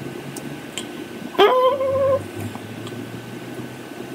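A pet's short, high-pitched whine about a second and a half in: it slides sharply up, then holds a slightly wavering pitch for under a second.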